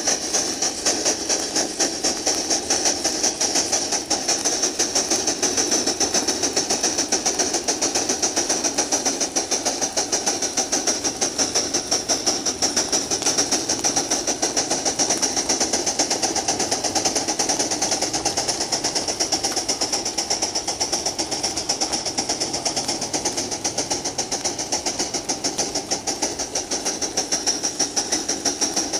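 Aster K4 gauge 1 live-steam locomotive running under load, its exhaust chuffing in a rapid, even beat over a steady hiss of steam.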